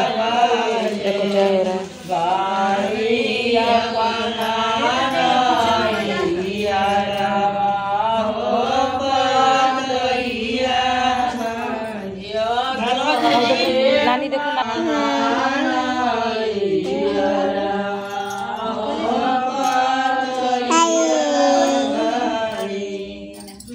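A group of women singing a Hindu devotional folk song to the goddess (Devi geet) together, in a chant-like melody.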